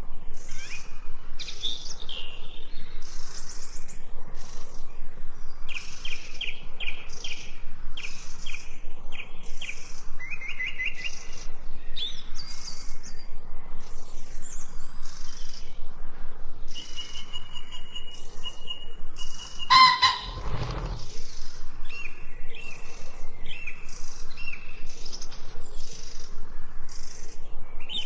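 Many small birds chirping and trilling densely and without pause, with short high calls overlapping one another. About twenty seconds in there is one loud, brief call with a low thump beneath it.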